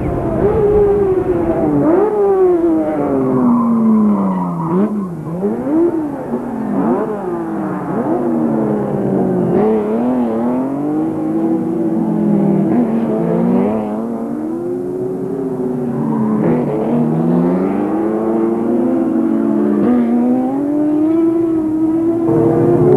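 Several Turismo Carretera race car engines running hard. Their pitch climbs and then drops sharply again and again as the cars rev up and change gear.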